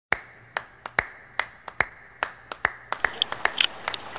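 Sharp claps in a quick, uneven rhythm, about two to three a second, over a faint steady hum, starting abruptly just after the start.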